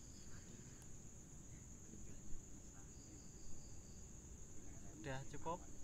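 Crickets trilling in a steady, high-pitched chorus, with a second, slightly lower trill that comes and goes.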